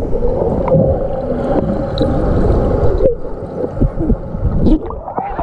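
Muffled underwater rushing and gurgling of churned wave-pool water and air bubbles, heard through a camera held below the surface. The rush thins out and drops about three seconds in.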